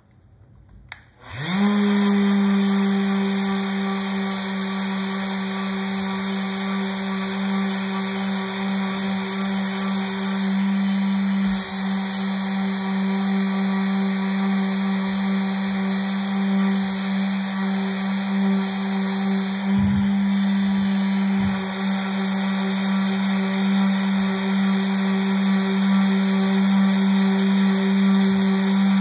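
Electric random orbital sander switched on about a second in, spinning up quickly, then running steadily with a constant hum as it is worked over a wood inlay panel.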